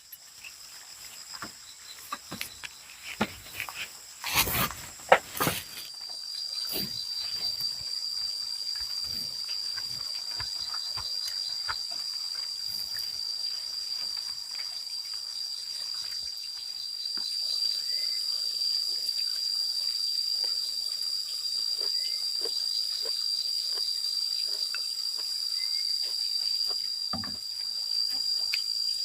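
Steady, high-pitched chorus of insects chirring in the forest, setting in strongly about six seconds in. Before that, a few sharp knocks and clicks, the loudest two about four and five seconds in.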